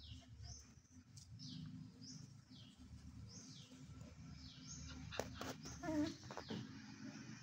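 A bird repeats a short, high, falling call about once a second over a low hum. About five seconds in come a few sharp clicks and a short low whine.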